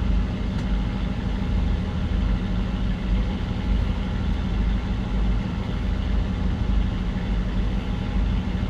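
A ship's engine running steadily: a loud, even low drone with a constant pitch.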